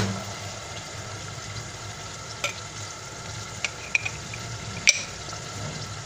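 Browned meat sizzling in a stainless steel pot while tomato paste is stirred in. A metal spoon clicks against the pot a few times, loudest about five seconds in.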